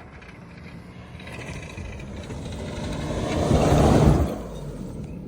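A motor vehicle driving past: engine and road noise build over about three seconds, are loudest around four seconds in, then fall away quickly.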